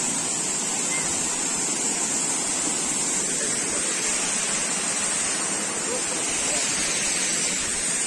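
Steady rush of a small waterfall cascading over rocks.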